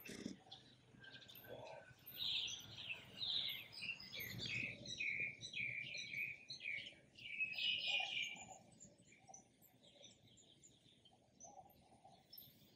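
Small birds chirping and singing in quick, overlapping calls, busiest in the middle and thinning out near the end.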